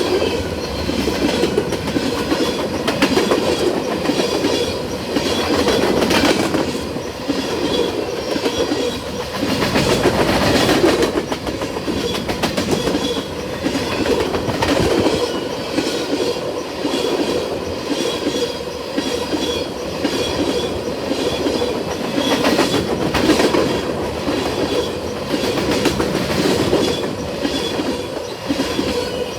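Freight train cars rolling past, wheels clattering steadily over rail joints, with a faint steady high-pitched wheel squeal underneath.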